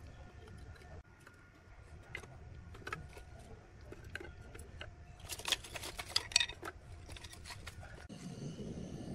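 Thin wooden kindling sticks clacking against each other and against the cement as they are stacked into a stove's firebox, with a run of louder, quicker clacks about halfway through.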